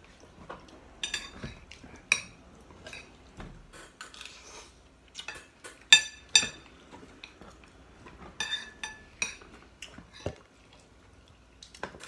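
Cutlery clinking and scraping against ceramic plates and bowls in scattered, irregular strokes, with a few sharper ringing clinks about six seconds in and again around eight and a half seconds.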